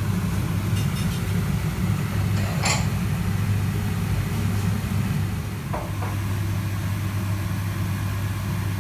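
Cooker-hood extractor fan running over the hob with a steady hum and whoosh, with a couple of light knocks of a pan or utensil.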